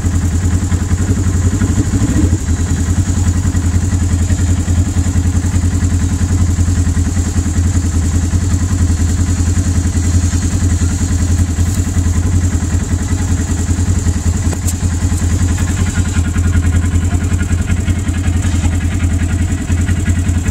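Side-by-side UTV engine idling steadily, heard from the driver's seat, with an even low pulsing hum.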